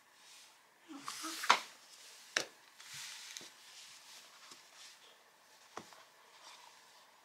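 Collapsible silicone pot handled and pulled open from its folded shape: soft rubbing of silicone with sharp clicks and taps, the loudest about a second and a half in and again just before two and a half seconds, then scattered small ticks and a knock near six seconds.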